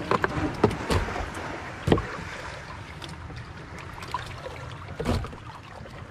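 Irregular knocks and clatter of things being handled, the loudest a little under two seconds in and another about five seconds in, over a steady low rumble.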